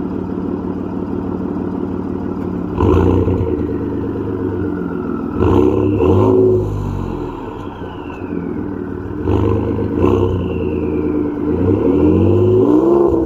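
Ford F-150 EcoBoost twin-turbo V6 idling and revved in several short blips. A high, falling turbo whistle follows the revs as the turbos spool down.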